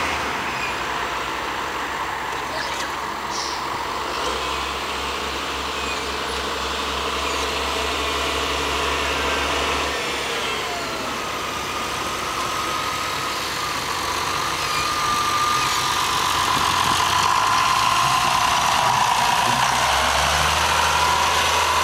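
John Deere tractor's diesel engine running as it drives over a silage pit, rolling the grass down, getting louder near the end as it comes close. A steady whine joins in about halfway through.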